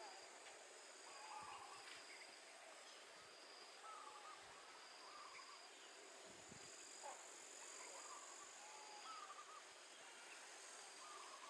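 Faint outdoor ambience: short bird chirps come every second or so over a steady hiss, with a thin, steady high-pitched tone underneath.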